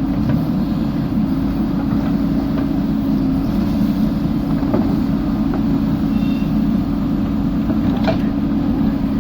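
JCB 3DX backhoe loader's diesel engine running steadily with an even drone.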